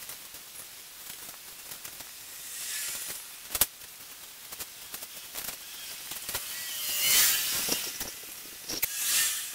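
Plastic branches of an artificial Christmas tree and a string of Christmas lights being handled: rustling that swells up several times, the loudest near the end, with a few sharp clicks, the sharpest about a third of the way in.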